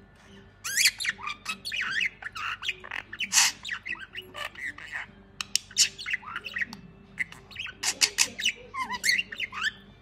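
Budgerigar chattering in a fast warble of chirps, whistled glides and clicks, starting about half a second in and going on with short pauses.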